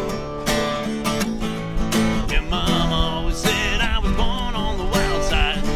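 Bluegrass trio of banjo and acoustic guitars playing together, with steady picking and strumming. A wavering, bending lead line rides over the rhythm in the middle.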